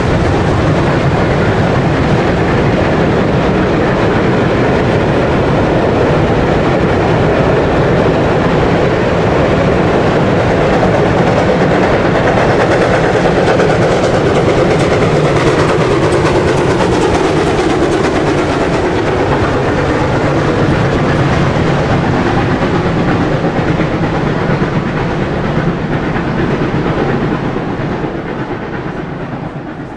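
A steam-hauled passenger train passing close by on a climbing grade: coach wheels clattering over the rail joints, then the steam locomotive working at the rear of the train goes by about halfway through, with a falling pitch as it passes. The train sound then fades away near the end.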